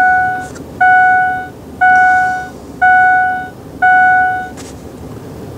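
Pickup truck's dashboard warning chime ringing about once a second, five times, each note struck sharply and fading, then stopping.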